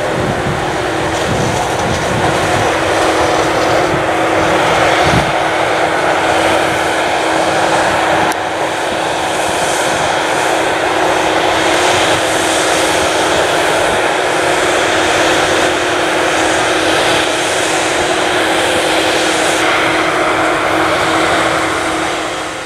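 Claas Jaguar 980 forage harvester chopping maize, its engine and chopper running under load as one loud, steady drone with a held tone, and a tractor running alongside.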